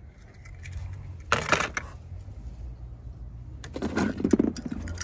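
Small die-cast toy cars and plastic ball-pit balls rattling and clinking against each other as a hand rummages among them. The rattling comes in two louder bursts, about a second and a half in and again near the end.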